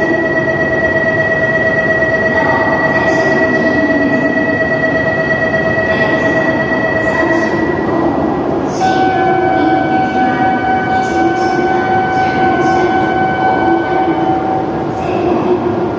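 A stationary E7/W7-series Shinkansen at a station platform: a steady electrical whine made of two held high tones over a dense hum. About 9 s in the tones drop out and a different pair takes over at a new pitch.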